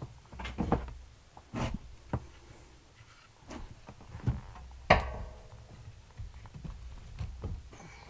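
Split firewood kindling being set into a wood stove's firebox: a run of wooden knocks and clatters as pieces land on the wood and the stove, the loudest about five seconds in with a brief ring.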